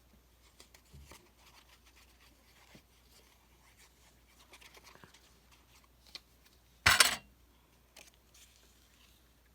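Paper and craft pieces being handled on a worktable: small rustles and taps, and one short, loud rustle about seven seconds in.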